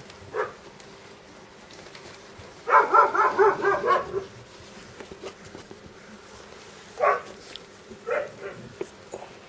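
Doberman puppies yipping as they play-fight: one short yip near the start, a rapid run of high yips for over a second about three seconds in, and two more single yips near the end.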